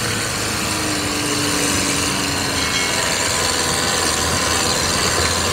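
Four-wheel-drive jeep's engine running steadily as it climbs a rough dirt track, heard from the open back along with a steady rumble of road noise.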